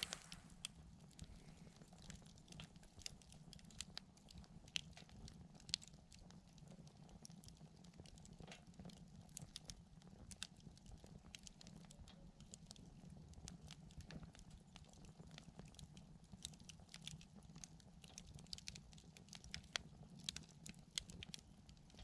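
Wood fire crackling softly, with small irregular pops and snaps over a faint low hum.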